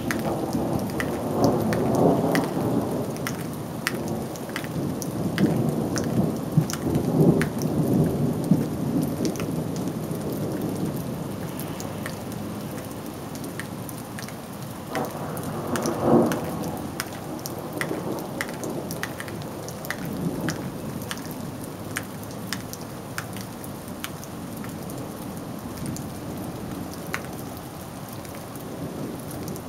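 Thunderstorm: steady rain with individual drops ticking close by, and thunder rolling through the first several seconds and again briefly about halfway through.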